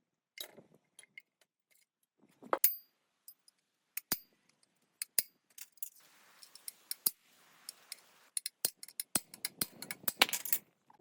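Scattered metallic clinks and taps of tools and metal parts being handled, a few ringing briefly. A soft rubbing hiss comes in about six seconds in, and a quick run of clinks follows near the end.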